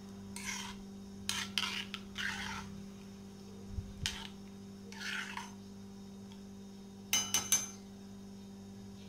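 Metal spoon scraping against the inside of an iron kadhai in short strokes as tea leaves are stirred in hot water. About seven seconds in come a few quick, sharp metal clinks with a brief ring, spoon against pan.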